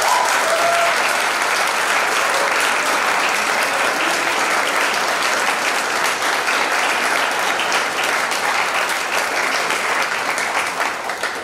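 Audience applauding, a room full of hands clapping steadily, easing off near the end.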